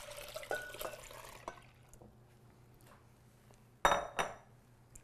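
Pineapple juice being poured into a container for about a second and a half. About four seconds in comes one sharp knock with a brief ring.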